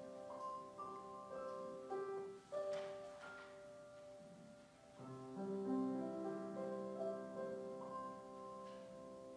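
Slow, quiet keyboard music in a church: held chords that change every second or so, easing off about four seconds in before a new phrase begins.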